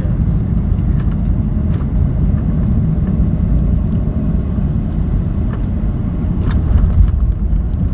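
Jet airliner cabin noise during landing: a loud, steady deep rumble from the engines and the wheels on the runway.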